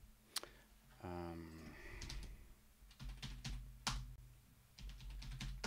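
Computer keyboard keys being typed in scattered clicks and short runs, with a quick run of keystrokes in the middle.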